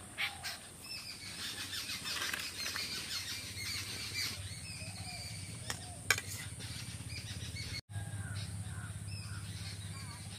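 Birds chirping and calling outdoors, with a single sharp metallic clink about six seconds in, a metal ladle against a steel bowl of curry. A low steady hum comes in during the second half.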